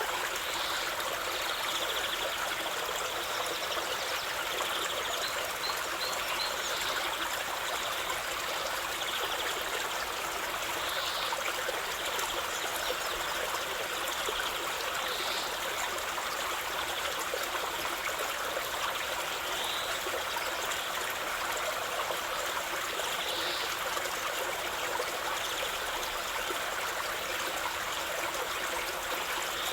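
Waterfall splashing with a steady, even rush of falling water. Faint, short bird chirps come through now and then, including a quick little series about five seconds in.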